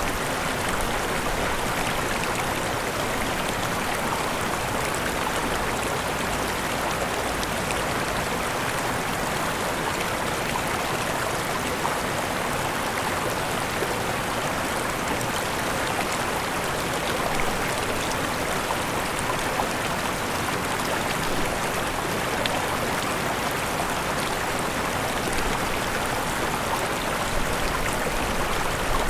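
Waterfall: falling water splashing in a steady, even rush, with small splashes scattered through it.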